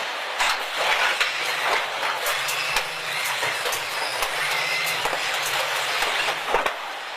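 A machine running with irregular clattering and knocks over a steady rushing noise, and a low hum that comes in about two seconds in and stops near the end.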